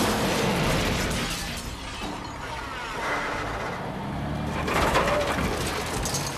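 Film sound effects of a heavy truck bearing down and crashing, with glass breaking and metal crunching.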